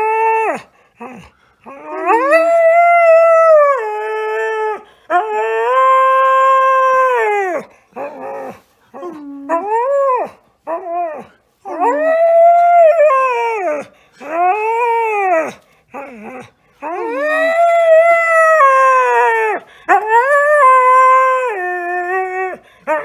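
Husky howling in a string of long, drawn-out howls, each rising and then falling in pitch, broken up by shorter yips and whines.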